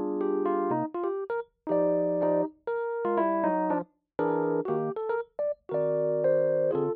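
Lofi background music of held keyboard chords that stop and restart, with several short silent gaps between phrases.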